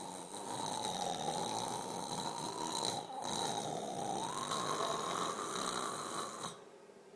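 A sleeping woman snoring in long drawn breaths, with a short break about three seconds in, stopping shortly before the end.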